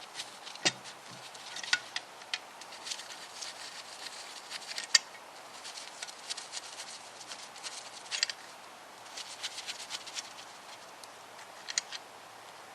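Light metallic clicks in quick runs, with a few sharper knocks, as bolts are undone from the timing-chain-end bracket of a Classic Mini's A-series engine block.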